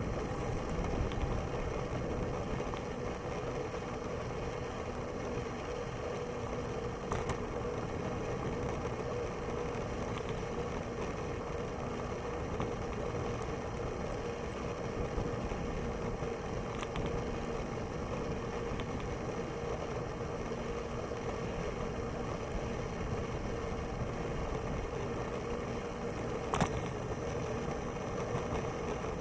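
Steady rolling noise of a Moulton bicycle riding on an asphalt path: tyre and wind noise with a constant hum, broken by a few short clicks, the sharpest near the end.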